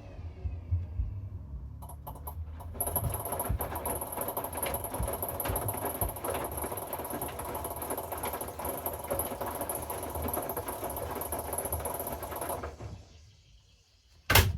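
Hoover inverter washing machine in its wash phase: the drum turns with water and laundry churning, under a thin steady high motor whine. It stops about 13 seconds in, followed by a single sharp click.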